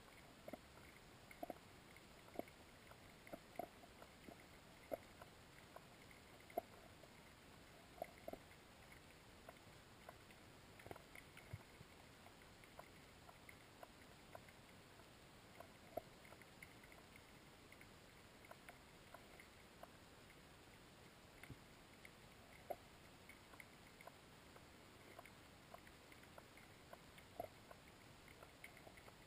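Near silence underwater, muffled through a waterproof camera housing, broken by irregular sharp clicks and knocks about one every second or so.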